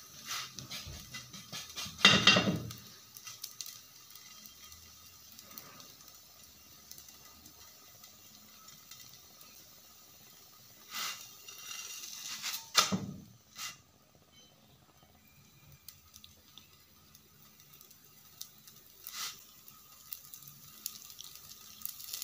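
Msemen flatbread frying on a hot, oiled heavy pan: faint sizzling, with a few sharp knocks and scrapes as the bread is pressed and turned. The loudest comes about two seconds in and another near thirteen seconds.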